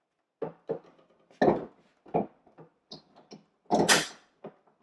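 Flat-screen TV being set onto its wall mount: a string of knocks and clunks as it is hooked onto the wall plate and pushed into place, the loudest, sharpest clunk about four seconds in.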